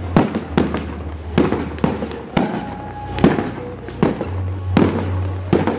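Fireworks going off: an irregular string of sharp bangs, roughly two a second, each followed by a short echo, over a steady low rumble.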